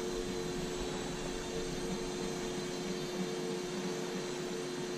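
Microaces Airco DH.2 micro RC airplane's electric motor and propeller running at a steady low throttle, a steady hum with an even hiss, flown slowly near stall speed.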